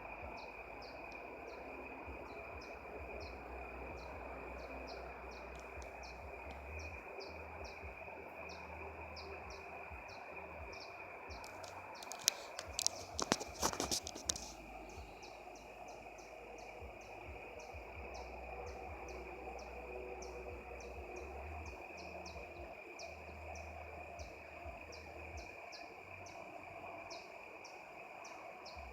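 Outdoor ambience: a steady high drone with short, evenly spaced high chirps about twice a second, from insects or a bird. A brief cluster of sharp clicks and rustles comes a little before the middle.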